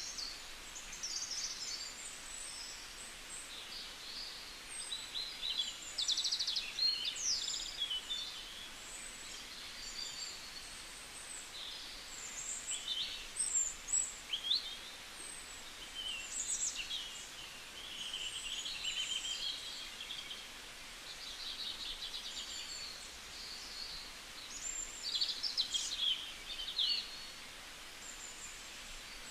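Several songbirds chirping and trilling, many short high calls and rapid trills overlapping, over a faint steady outdoor hiss.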